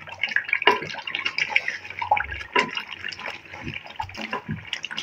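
A spoon stirring a thick, wet spinach-and-beef curry in a cooking pot, making irregular wet clicks and splats.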